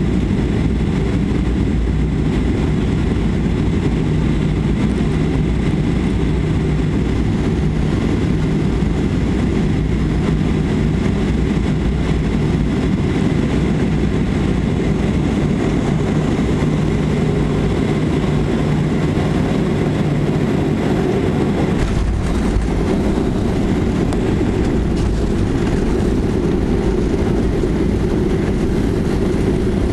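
Cabin noise inside a Boeing 737-500 on final approach: a steady, loud rumble of engines and airflow. About 22 seconds in the wheels touch down, and the sound turns into a heavier rumble of the landing roll.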